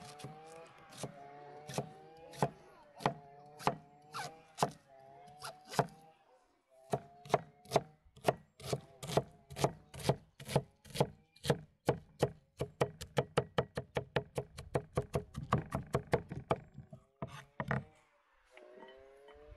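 Kitchen knife dicing an onion on a thick round wooden board, each stroke a sharp knock. The strokes come at a steady pace of about two a second, then speed up to a fast run of about five a second for a few seconds. They stop near the end after a few last cuts.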